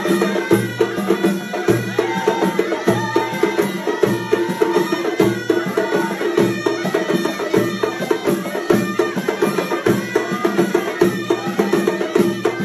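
Moroccan traditional procession music from a live troupe: deep drum beats about once or twice a second, with sharp hand percussion over a steady, held melody.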